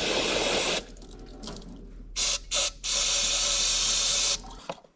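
Parts washer's solvent stream running over a brake master cylinder in spells: steady flow at first, two short spurts, then another steady run that cuts off near the end.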